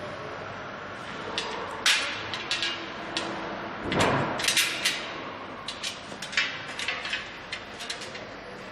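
Irregular knocks, clicks and clinks from parts of a solar water heater's frame being handled and fitted together during assembly. A sharp knock comes about two seconds in, and a longer scrape about four seconds in.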